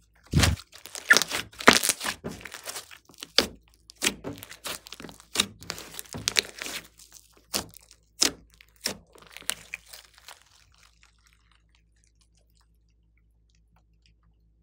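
Glossy slime being stretched and pressed by hand, giving a run of sharp wet pops, clicks and crackles. These are loudest in the first couple of seconds, then thin out and stop about ten seconds in.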